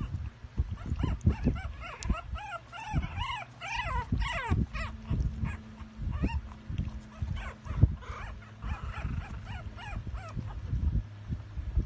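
Young Jack Russell terrier puppies whimpering and squeaking in many short, high cries, thickest in the first half, over scattered low thumps.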